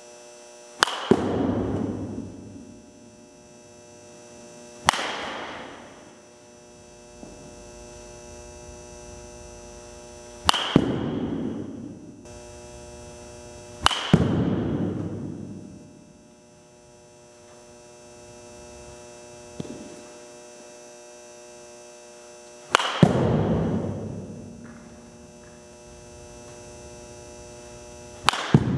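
Baseball bat striking balls in an indoor batting cage: six sharp cracks a few seconds apart, each ringing away over a second or two in the hall. A steady electrical hum runs underneath.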